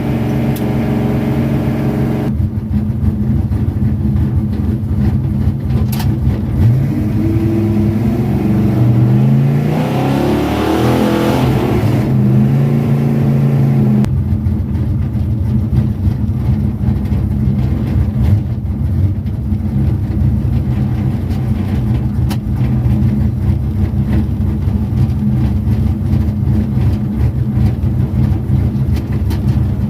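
Engine running steadily with a low drone. It climbs in pitch from about eight seconds in, peaks around eleven to thirteen seconds, and drops back abruptly to the steady drone about fourteen seconds in.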